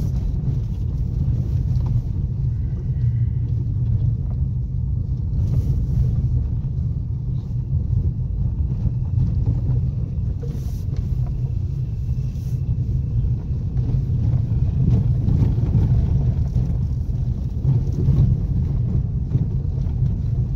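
A car driving on a rough dirt track, heard from inside the cabin: a steady low rumble of engine and tyres, with a few faint clicks and rattles.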